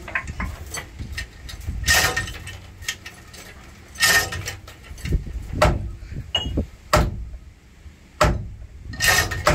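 Heavy hammer blows on metal, several of them a second or two apart, driving a wedge to break loose a seized part of an old boat engine.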